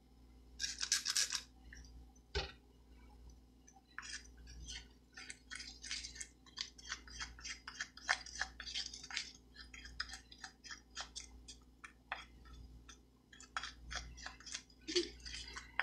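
A mixing stick scraping around inside a small jar of black chalk paste as it is stirred hard. There is one longer scrape about a second in, then quick short strokes at about two or three a second.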